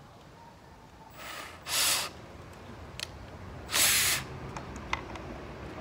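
Cordless drill driving a 1 1/4-inch screw into a wooden frame in two short bursts, about two seconds apart. No pilot hole was drilled, and the screw cracks the wood.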